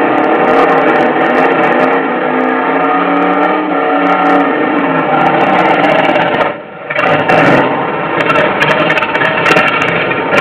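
Muscle car V8 engine revving hard during a burnout, pitch rising and falling. The level drops briefly about two-thirds of the way through before the engine comes back up, with sharp crackles near the end.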